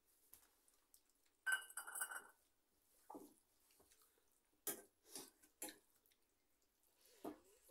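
A stainless-steel bowl clinks against a steel plate about a second and a half in and rings briefly. After it come soft, short sounds of eating with the hands: fingers mixing rice and dal on the plates, and chewing.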